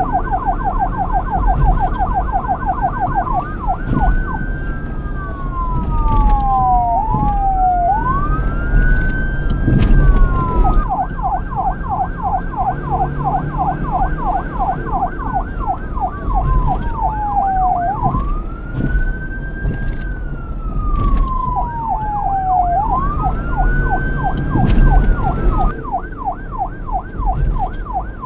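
Police car electronic siren switching between a rapid yelp and a slow wail. It yelps at first, changes to a slow rising-and-falling wail about three seconds in, and goes back to the yelp around eleven seconds. It wails again from about eighteen seconds and yelps near the end. A steady low rumble runs underneath.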